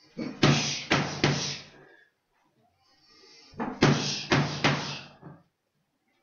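Boxing gloves striking Thai pads in two quick sets of three punches (cross, hook, cross), the sets about three seconds apart.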